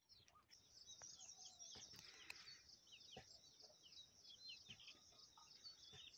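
Faint birdsong: many short, falling chirps over a rapid, steady high trill, with a couple of soft clicks.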